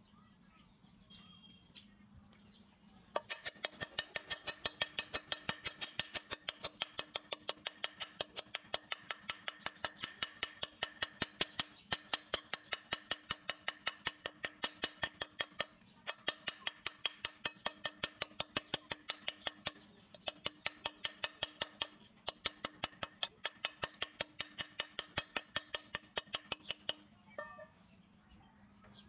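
A small power tool running with a steady hum and a fast, even clicking, about five or six clicks a second, as it works the rusty metal. It starts about three seconds in, breaks off briefly a few times, and stops abruptly shortly before the end.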